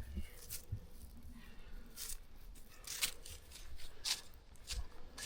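Slow footsteps crunching in dry leaves on the forest floor, a crisp step about every second, irregularly spaced.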